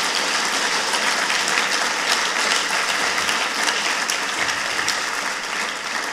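Audience applauding: dense, steady clapping of many hands that eases slightly near the end.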